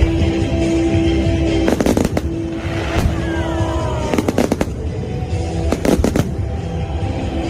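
Fireworks bursting in three quick clusters of bangs about two seconds apart, over music played across the show site.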